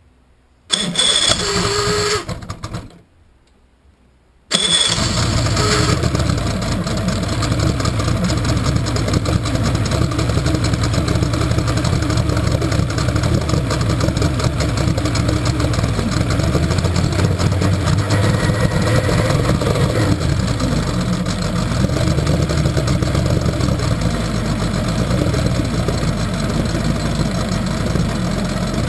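1964 Evinrude Starflite two-stroke V4 outboard in a test barrel on its first start of the season. A first try of about a second and a half stops short; then, about four and a half seconds in, the engine catches and runs steadily.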